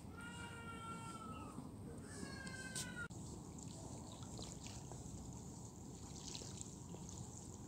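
A gull gives two long, drawn-out calls in the first three seconds, the first falling away at its end. Then the sound cuts to small waves lapping and trickling against the shore.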